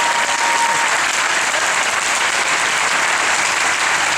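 Audience applauding steadily, with a single held high note over it in the first second.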